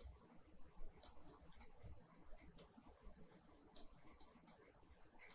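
Computer mouse button clicks, quiet and irregular: about seven or eight in all, some in quick runs of two or three, as points of rectangles are clicked on a 3D modelling plan.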